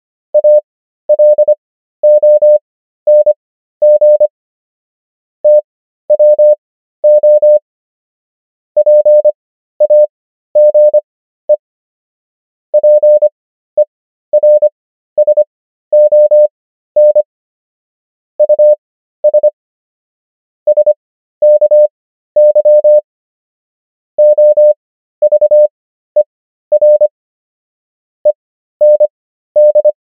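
Morse code sent as a pure sine tone of one steady pitch, keyed on and off in quick dots and dashes. Each letter is sent at 25 words per minute, with wide Farnsworth gaps between characters and words bringing the overall pace down to about 13 words per minute.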